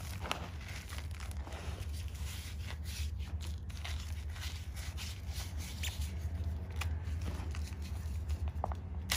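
Chalk being crumbled, giving a dense run of small crunches and crisp crackles over a steady low hum.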